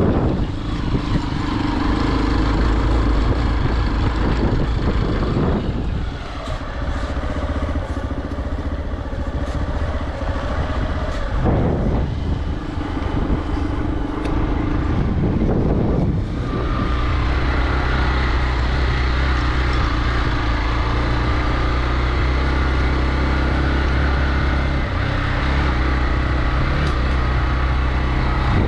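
Hero XPulse 200 motorcycle's single-cylinder engine running under way on a rough road. Its note is steady at first, shifts up and down through the middle stretch, and is steady again for the last ten seconds or so.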